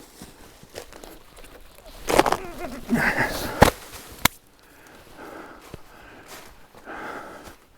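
Rotten wood of a dead tree stump being pried and broken apart by hand: bouts of crunching and crackling, with two sharp snaps about three and a half and four seconds in, then fainter rustling.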